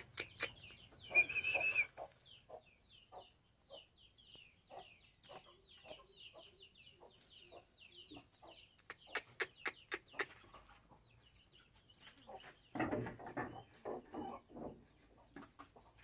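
Chickens clucking faintly, with a long run of quick high chirps through the middle and a louder run of clucks near the end.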